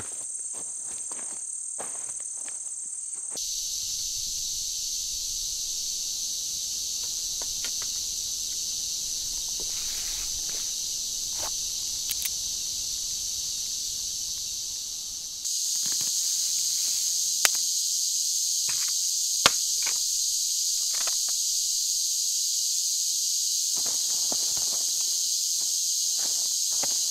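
Steady high-pitched buzz of a summer insect chorus, which shifts abruptly twice and is louder in the second half. Scattered light crackles and two sharp clicks past the halfway point.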